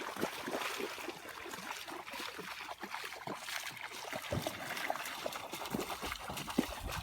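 River water trickling and lapping at the edge, a steady patter of many small irregular splashes.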